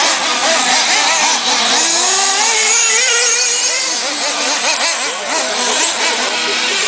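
Nitro engines of 1/8-scale RC truggies racing, a high-pitched whine whose pitch keeps rising and falling with the throttle, several engines overlapping.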